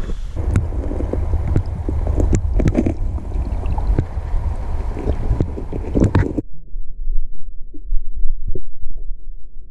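Camera microphone dipped into a shallow stream: sloshing, splashing water with sharp knocks against the camera, then about six and a half seconds in the sound turns suddenly muffled as the microphone goes fully underwater, leaving a low rumble with a few dull thumps.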